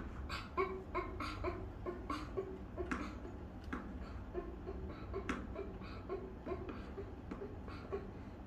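A young child's voice making short, repeated giggly sounds, two or three a second, with a couple of sharp taps in between.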